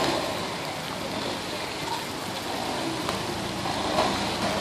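Daihatsu Fourtrak 4x4 pulling up a muddy slope with its wheels spinning and throwing spray; its engine is faint under a steady wet hiss of spray and rain.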